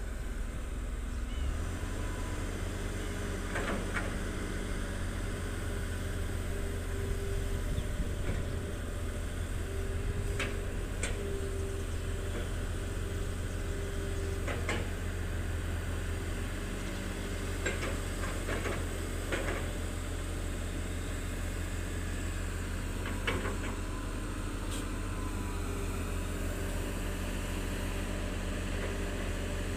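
Diesel engines of a Volvo EC210B LR and a Hitachi ZX200 excavator running steadily with a low hum, broken by a few short knocks and clanks.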